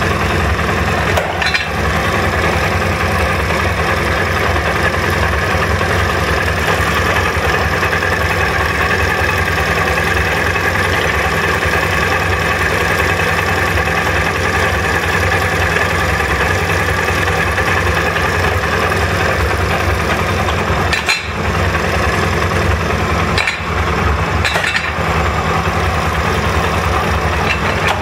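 SMC 250's engine running steadily at idle with its chain rattling, a sign of a slack or worn chain. A few short knocks come late on.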